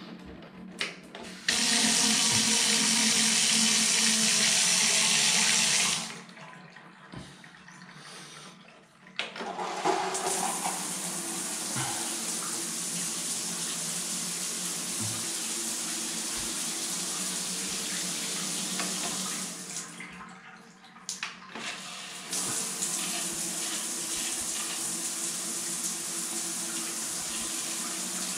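Grohe Euphoria SmartControl shower system turned on at its push buttons: water runs loudly for about four seconds and stops, then a few seconds later the overhead rain shower head comes on and its water falls steadily into the bathtub, dipping briefly about twenty seconds in.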